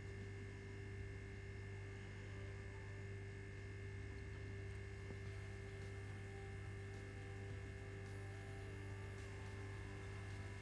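Steady low electrical hum with a few fixed tones above it and nothing else distinct.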